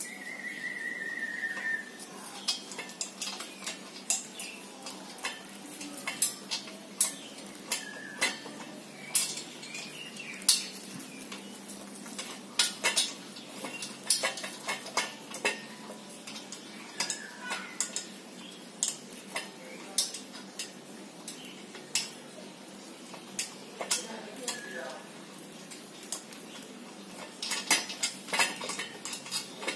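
Scattered metallic clinks and taps with plastic wrapping crinkling as a new two-stroke motorcycle exhaust silencer is handled and pushed onto its expansion chamber. A short squeak comes near the start, and the taps bunch together near the end.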